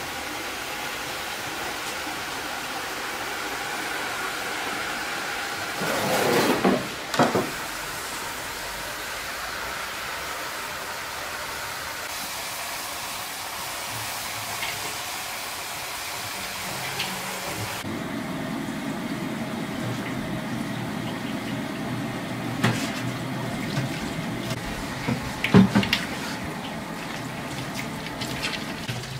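Tap water running into a stainless-steel sink during washing up, the flow's sound shifting partway through. Metal pots and utensils knock and clatter over it a few times, loudest near the end.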